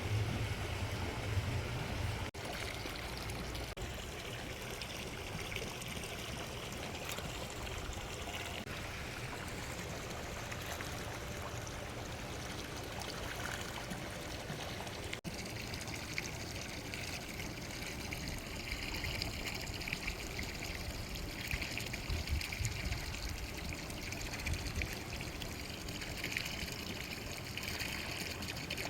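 Steady sound of running, trickling water, with a low rumble now and then.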